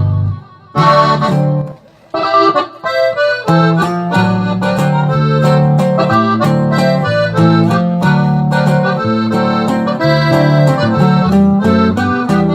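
Accordion playing an instrumental melody over a low bass accompaniment. The music cuts out briefly twice in the first two seconds, then plays on steadily.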